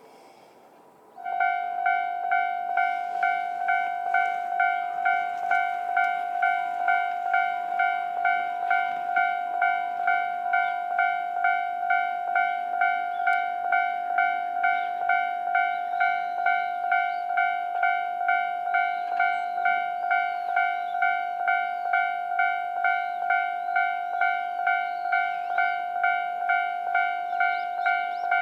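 Japanese level crossing's electronic warning bell switching on about a second in and dinging steadily, about one and a half dings a second, the signal that a train is approaching.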